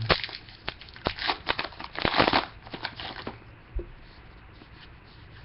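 Trading card pack being handled: the wrapper crinkling and tearing and the cards rustling, with a busy stretch about two seconds in. It dies down to faint handling after about three seconds.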